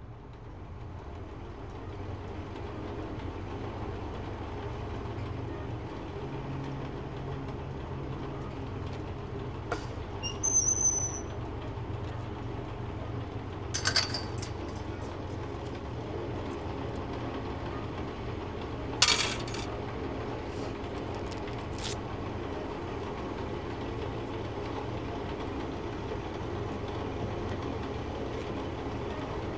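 Low, steady rumbling drone that fades in at the start, with a few scattered metallic clinks and sharp knocks over it: a ringing clink about a third of the way in, and the loudest knock a little past the middle.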